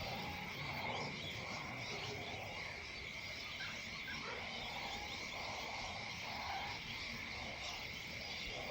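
An outdoor evening chorus of animal calls: short croaking calls repeating about once a second over a steady high-pitched drone.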